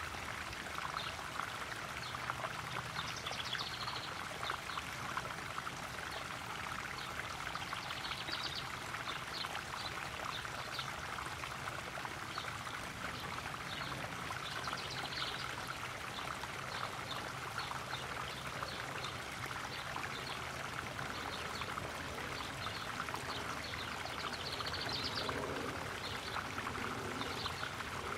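Garden koi pond waterfall splashing and trickling steadily, with short high-pitched chirps every few seconds.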